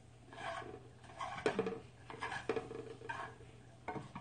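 Eating at the table: chopsticks clicking and scraping against a frying pan and bowl, with bursts of chewing, in several short separate bursts with a few sharp clicks.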